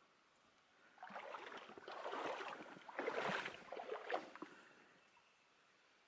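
Water splashing and sloshing close by at the edge of a still plunge pool for about three and a half seconds, in irregular bursts, starting about a second in.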